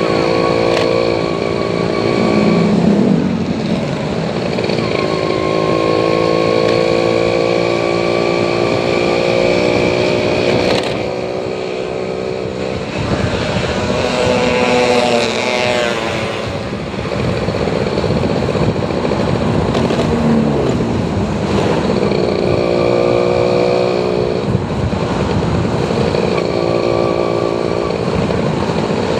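A vehicle engine running on the road, its pitch rising slowly and falling back several times as it speeds up and eases off, with a steady whine over it. About halfway through, a higher climbing sound briefly joins it, perhaps another vehicle going past.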